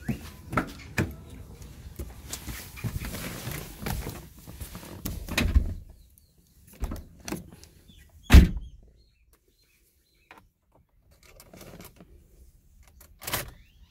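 A jumble of knocks and rustling, then a car door shutting with a solid thunk about eight seconds in. After that it is nearly quiet, with a few faint knocks and a sharp click near the end.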